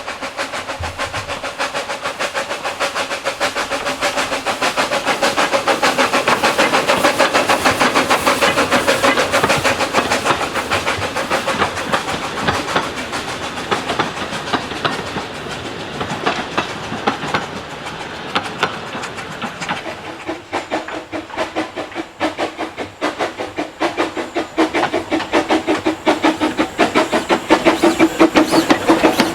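009-scale model train running on its track: a fast stream of clicks from the wheels on the rails over a small motor's steady whine. It grows louder to a peak in the first third and fades, then grows louder again near the end.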